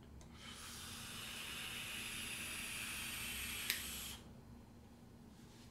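Long draw on a vape mod with a rebuildable dripping atomizer (RDA): a steady hiss of air pulled through the atomizer for about four seconds, with a sharp click just before it cuts off.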